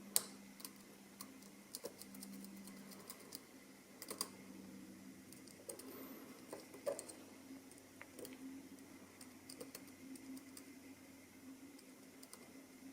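Faint, irregular small clicks and ticks of lock picks working the pins of a Mul-T-Lock MT5+ high-security cylinder, the sharpest click coming right at the start, over a steady low hum.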